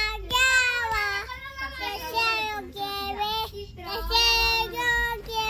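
A toddler singing in a high voice, holding steady notes across several short phrases, with a brief pause a little past the middle.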